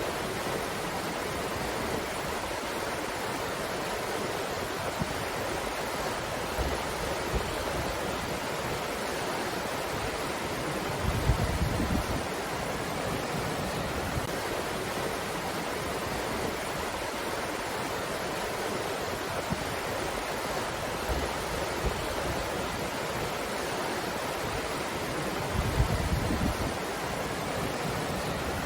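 Steady breeze with an even hiss, and two brief low gusts buffeting the microphone, about eleven seconds in and again near the end.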